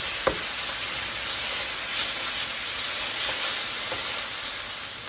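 Boneless chicken thighs sizzling steadily in olive oil in a pan over medium-high heat, with two light clicks near the start.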